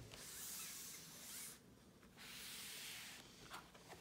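Two soft sliding rubs, each about a second long, as a hand and sweater sleeve brush across a wooden tabletop to reach a calculator box.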